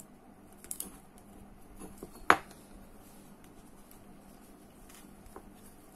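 Small hard parts of a spinning reel's spool and drag stack clicking and clinking as they are handled. There is a light clatter under a second in and one sharp click a little over two seconds in, over a faint steady hum.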